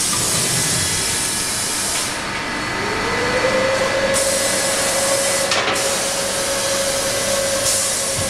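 LPG cylinder circumferential welding machine running: a steady hiss that dips and returns several times, and a motor whine that rises in pitch about two and a half seconds in and then holds steady while the track carries the cylinder into the clamping fixtures.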